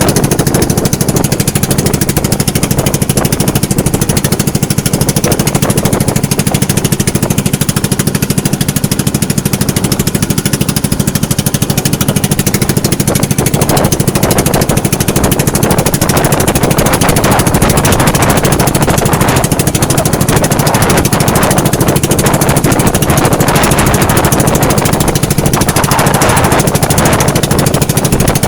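Small engine running steadily at a constant speed, loud and close, with a rapid knocking beat and a steady hiss over it.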